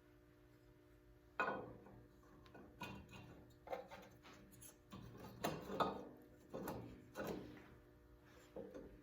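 Metal clinks and knocks of head bolts and nuts being handled and started by hand on a Kohler K-series engine's cylinder head, about nine or ten irregular taps over a faint steady hum.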